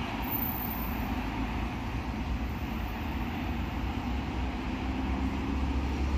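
Steady outdoor background noise with a low rumble, no distinct events.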